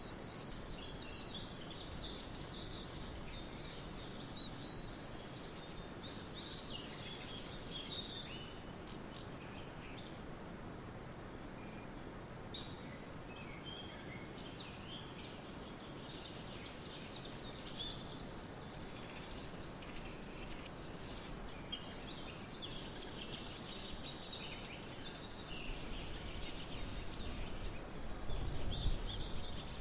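Several songbirds singing and chirping in overlapping short calls and trills over a steady background hiss. A low rumble swells up near the end.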